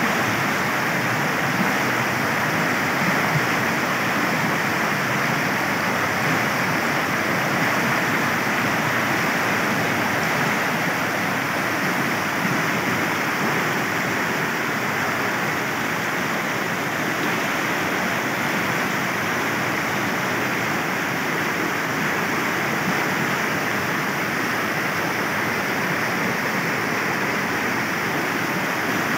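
Fast-flowing floodwater rushing in a steady, unbroken wash of turbulent water noise.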